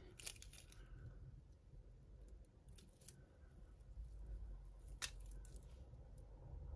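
Faint clinks and rustles of metal costume jewellery being handled as a mesh chain necklace is lifted and drawn across a pile of jewellery, with a few small sharp clicks, the clearest about five seconds in.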